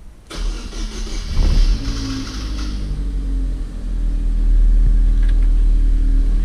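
Chevrolet Corsa engine running, coming in suddenly about a third of a second in and growing louder and steadier from about four seconds in. It runs without the vibration it had when the dented steel skid plate was touching the engine; the plate has just been straightened.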